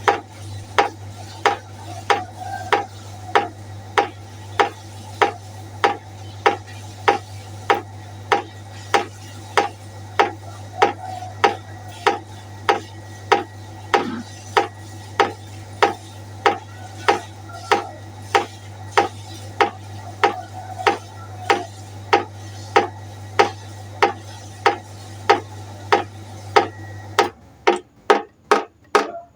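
Water droplets dripping steadily into a pot, about two drips a second, each drip a sharp plink with a short ringing tone. A steady low hum runs under the drips and cuts off near the end, where the drips come faster and less evenly.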